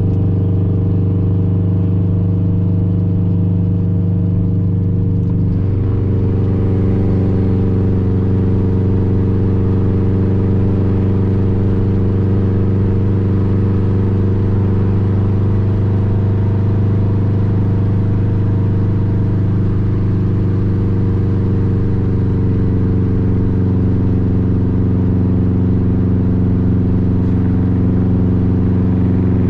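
2004 Subaru Impreza WRX STI's turbocharged 2.5-litre flat-four, fitted with a cat-back exhaust described as very loud, droning steadily at a constant cruise with a slight shift in pitch about five seconds in.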